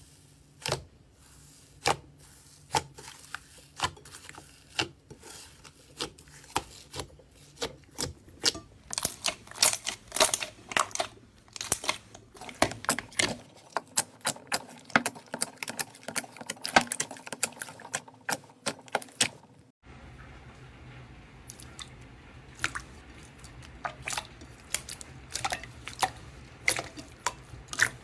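Slime being squeezed and poked by hands, making many sharp sticky pops and crackles, sparse at first and then coming thick and fast.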